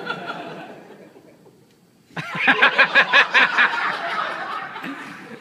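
Laughter breaking out suddenly about two seconds in, loud and close in quick repeated pulses, then dying away.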